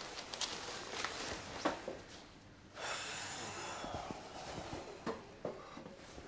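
A person sitting down at a table: clothes rustling and small knocks, with a longer rustle or scrape about three seconds in that lasts just over a second.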